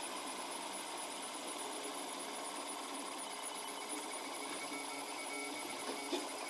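Protomaker Black Sprint 3D printer's stepper motors running steadily while printing, a whine of several held tones over a light mechanical hiss, with a couple of faint clicks near the end.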